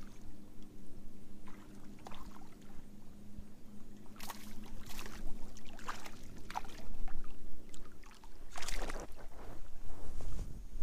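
Hooked largemouth bass splashing and thrashing at the water's surface as it is reeled in close, a run of short splashes with the biggest near the end.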